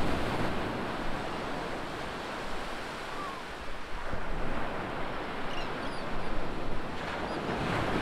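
Ocean surf: small waves breaking and washing up a sandy beach, a steady rush that swells a little with each breaking wave.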